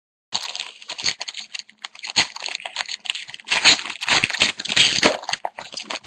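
Trading-card pack wrapper being torn open and crinkled by hand, an irregular run of crackles and rips with the cards rustling as they come out.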